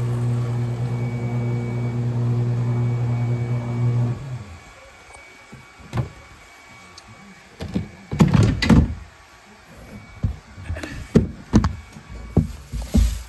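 Staples paper shredder's motor running with a steady hum, shutting off about four seconds in. After that, scattered knocks and bumps.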